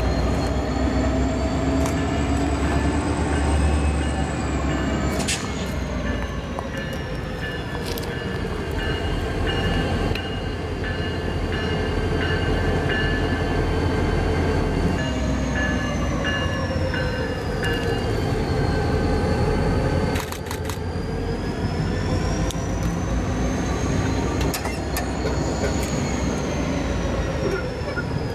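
Norfolk Southern diesel locomotives running as a light engine consist, approaching slowly with a heavy engine rumble. Squealing tones rise and fall slowly over it, typical of wheel flanges squealing through curved yard track, and a few sharp clanks come through.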